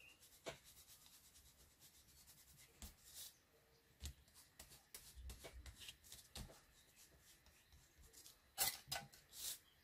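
Small foam ink applicator rubbing chalk blending ink onto paper in short, faint scratchy strokes, the paper shifting slightly on the cutting mat, with a few louder scuffs near the end.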